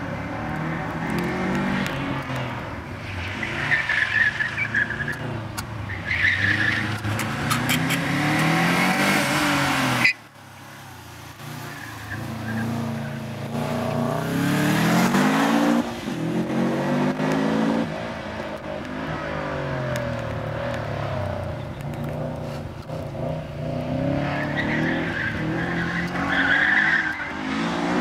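Subaru Impreza STi's turbocharged flat-four engine revving up and falling off repeatedly as the car is driven hard through tight corners, with the tyres squealing in several bursts. About ten seconds in the sound drops suddenly, then builds again.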